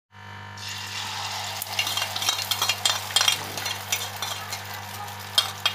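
Beaten egg sizzling on a hot flat griddle (tawa) as it is poured on, starting a fraction of a second in, with frequent sharp crackles of spitting oil over a steady hiss.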